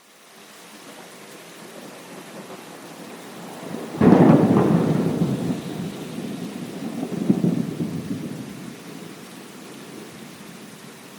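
Steady rain hiss fading in, then a sudden thunderclap about four seconds in that rolls into rumbling thunder, swelling again about three seconds later before dying away under the rain.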